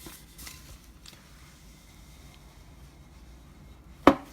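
Faint rustling and handling of product packaging, then a single sharp knock near the end.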